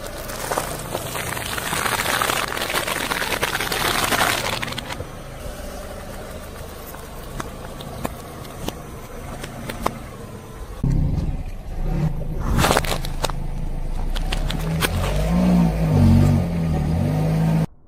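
A car tyre rolling over and crushing things in turn: a long hiss as water sprays from a burst plastic bottle, then scattered crackles as oranges squash, then a loud low rumble and a sharp crack as a watermelon splits. The sound cuts off suddenly near the end.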